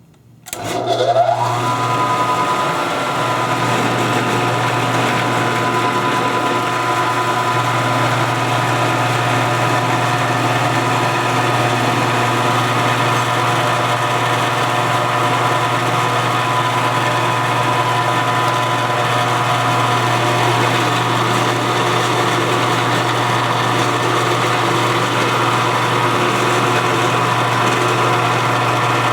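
Milling machine motor starting up about half a second in, its whine rising in pitch and settling within a second or so, then running steadily with a ball end mill in the spindle.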